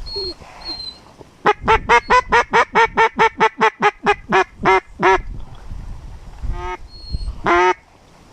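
Hen mallard-style quacking: a fast run of about eighteen quacks, about five a second, tapering off near the end, then two single quacks, the second longer and louder.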